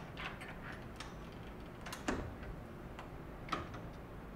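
Metal latches on the lid of a vacuum screen-printing exposure unit being fastened by hand: a few scattered sharp clicks and clacks, the loudest about two seconds in.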